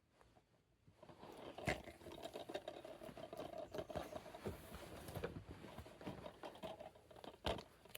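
DVD cases and packaging being handled: a run of faint rustling and small clicks with two sharper plastic knocks, one about two seconds in and one near the end.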